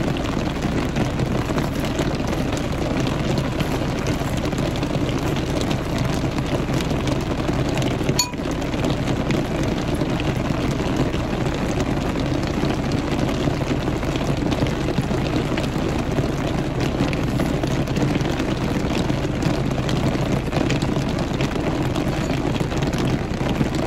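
Steady noise inside a car cabin with a low hum beneath it, and a single click about eight seconds in.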